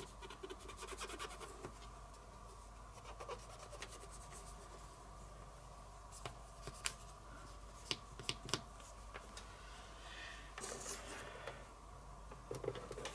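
A small metal tool scratching and clicking against the contacts of a mains lead's socket as they are squeezed together to grip the pins tighter, a fix for a loose connection that made the radio cut out. Faint scattered ticks, with a short scraping rub about ten seconds in.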